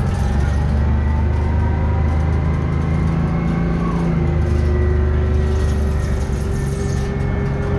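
Detroit Diesel 6V71N two-stroke V6 diesel of a 1982 GM New Look 'Fishbowl' transit bus running under way, heard loud from inside the passenger cabin. The note rises gently, then changes in tone about four seconds in.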